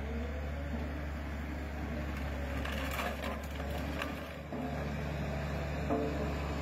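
Diesel engine of a heavy compactor-type dozer with spiked steel wheels running steadily as it rolls over a wrecked ATV. A few sharp cracks and crunches of the ATV breaking come around three seconds in and again near the end, and the engine grows louder about four and a half seconds in.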